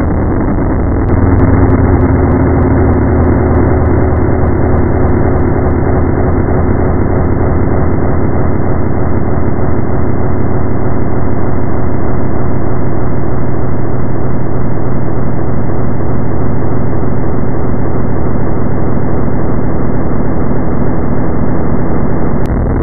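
Loud, dense noise-music drone: a steady low hum under a grainy wash of noise, which steps up louder about a second in and drops back just before the end.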